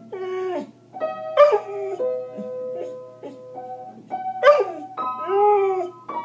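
A Samoyed howls along to music: four short, wavering howls, mostly sliding down in pitch, the loudest about four seconds in. Under them runs a tune with long held notes.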